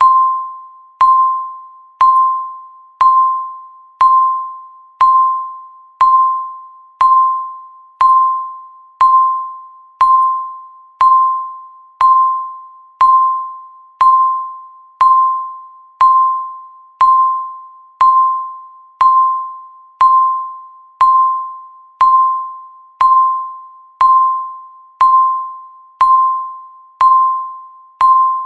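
Countdown timer's electronic tick sounding once a second, each tick a short pitched ping with a sharp start that fades quickly.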